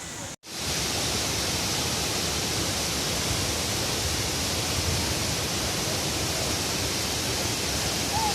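Steady rush of the Coban Pelangi waterfall, cutting in after a momentary dropout less than half a second in.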